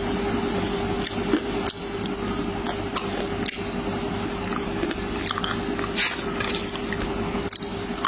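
Close-miked mouth sounds of someone biting and chewing soft, syrupy kala jamun, with scattered wet clicks and smacks over a steady background hum.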